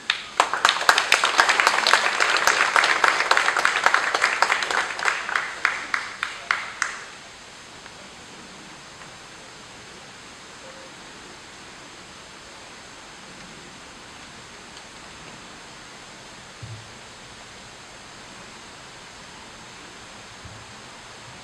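Wedding guests applauding after the vows: a crowd of clapping that starts suddenly, stays dense for several seconds, then thins to a few separate claps and stops about seven seconds in, leaving a steady faint hiss.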